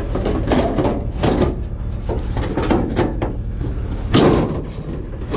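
Junk in a dumpster being shoved aside by hand: a run of clattering knocks and bangs, the loudest about four seconds in, over a steady low rumble.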